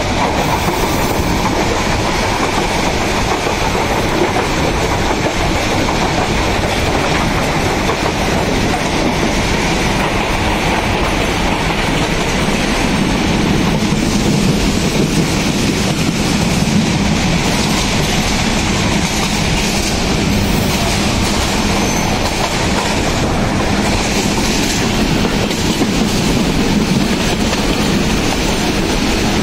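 Passenger train running on the track, heard from inside a carriage at an open window: a steady, loud rumble of wheels on rails with clickety-clack.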